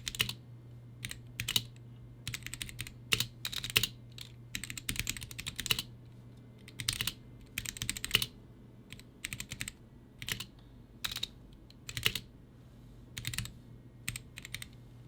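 Typing on a Womier (GamaKay) K87 tenkeyless mechanical keyboard fitted with Gateron Yellow linear switches: keystrokes in uneven bursts of clacks, over a faint steady low hum.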